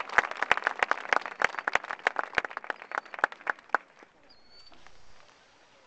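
Crowd applause from the stands, thinning to a few scattered claps and dying out about four seconds in.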